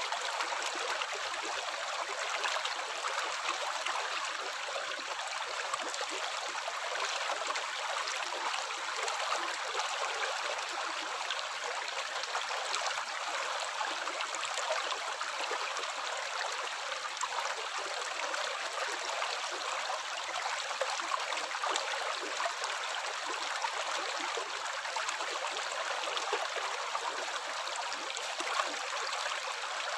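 Water running steadily: a continuous trickling rush with fine splashing and little deep rumble.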